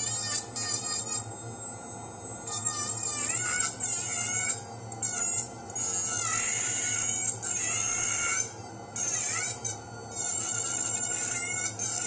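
High-pitched whine of a dental lab micromotor handpiece cutting a dental model. The whine shifts in pitch under load and drops away briefly three times.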